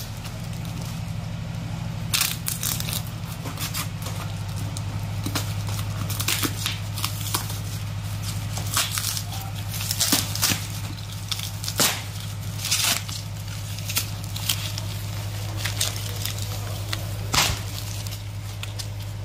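Hands tearing open paper-and-tape parcel wrapping and breaking away styrofoam packing: irregular crackling, tearing and crunching strokes, over a steady low hum.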